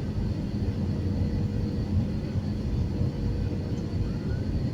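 Passenger jet coming in to land: a steady low rumble of engines and airflow with a faint, even hum over it.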